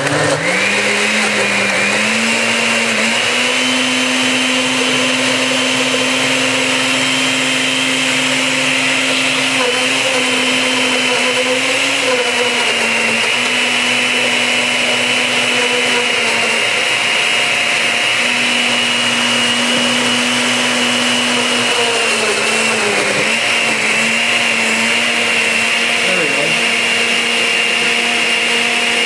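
Osterizer 8-speed blender with a metal-on-metal drive running loud, blending pineapple pieces into a thick mix. Its pitch rises as it spins up at the start, then holds steady, dipping briefly a few times as the load shifts.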